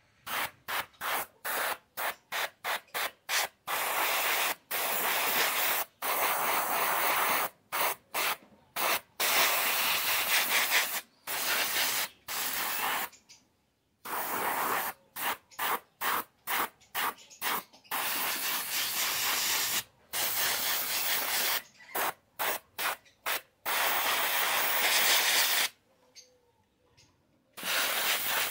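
Paint being applied to the skin areas of a carved wooden statue: rough hissing strokes, some short and quick at several a second, others lasting a second or two, each starting and stopping abruptly.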